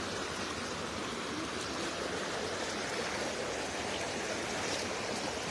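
Steady rush of flowing shallow water: an even hiss with no distinct splashes.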